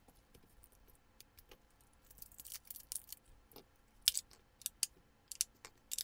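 Handling noise and small sharp plastic clicks from a Sofabaton U2 universal remote being picked up and its battery cover worked. The clicks are faint and sparse at first, then come louder and closer together in the second half.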